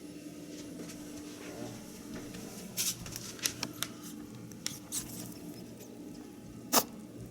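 Pet rabbit making scattered small clicks and ticks, with one sharper, louder click near the end, over a steady low hum.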